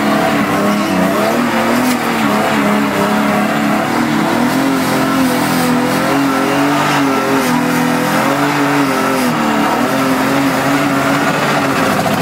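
Drift car's engine running hard, its pitch rising and falling with the throttle as the car slides, over a steady hiss of tyre noise, heard from inside the cabin.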